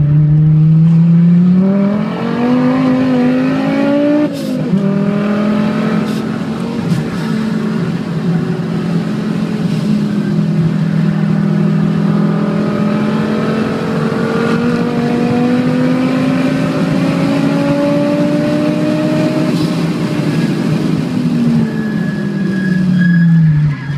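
Turbocharged Audi 90 quattro 20v inline-five engine heard from inside the car, accelerating hard. Its pitch climbs for about four seconds, drops sharply at an upshift, then climbs slowly for a long stretch before falling away as the car slows near the end.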